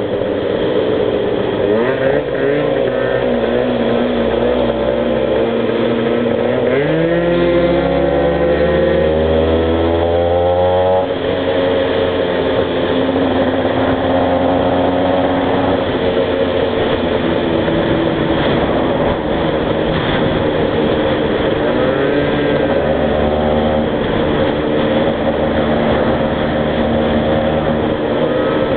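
Small two-stroke motorcycle engine running under way. It revs up in one long climb a few seconds in, drops sharply as the throttle comes off, then holds a steadier drone with smaller rises and falls.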